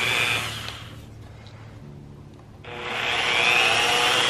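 Corded Milwaukee electric drill driving number 8 wood screws with fender washers into a wooden board. It runs until about half a second in and stops, then starts again about two and a half seconds in, speeding up, and stops near the end.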